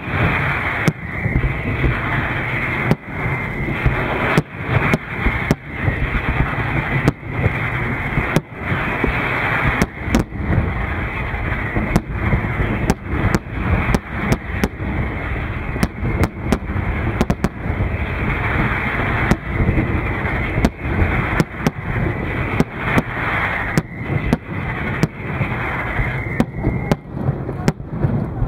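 Fireworks display: aerial shells bursting in quick succession, a sharp bang every second or so over a continuous din of further explosions.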